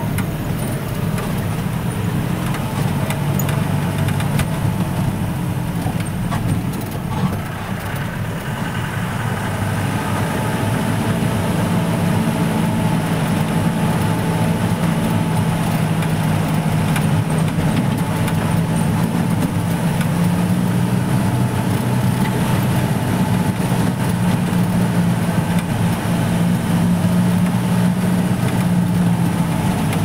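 Safari jeep's engine running as the jeep drives along a narrow road, heard from inside the vehicle, its note growing stronger about ten seconds in.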